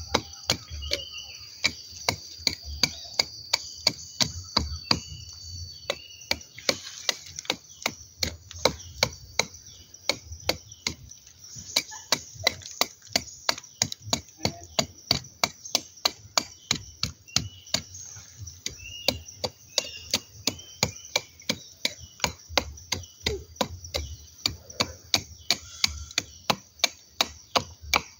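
Stainless knife blade chopping repeatedly into a durian tree's bark, cutting out the blackened, rotting tissue of a stem canker. Sharp taps come about two or three a second.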